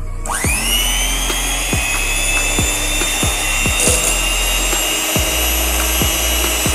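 Inalsa 250-watt electric hand mixer switching on, its whine rising quickly and then running steady as the beaters whip cream and sugar in a glass bowl. Background music with a steady beat plays underneath.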